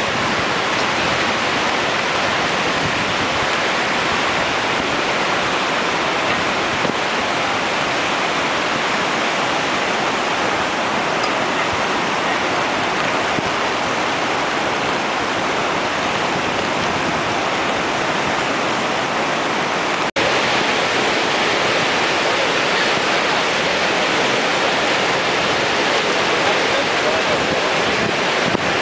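Heavy storm surf breaking on the beach, with strong wind buffeting the microphone, making one steady loud rush of noise. The sound cuts out for an instant about two-thirds of the way through.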